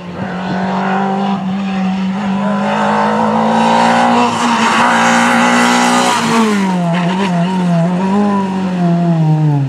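Renault Twingo rally car's four-cylinder engine held at high revs as it approaches at speed, loudest about five seconds in. About six seconds in the pitch drops sharply as the car passes and goes away, then rises and falls a few times.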